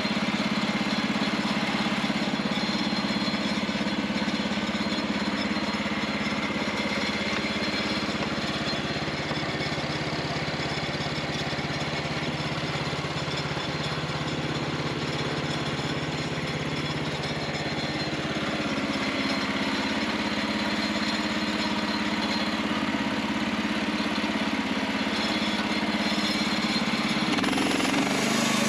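Small gas engine of a Norwood LumberMate portable bandsaw mill running steadily. Near the end its note changes as the saw head is pushed into the log to begin a cut.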